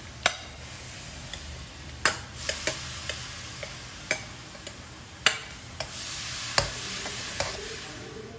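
Carrot paste sizzling in a hot iron kadai as a spoon scrapes it out of a bowl and stirs it in the pan, with a sharp click of metal on bowl or pan every second or so.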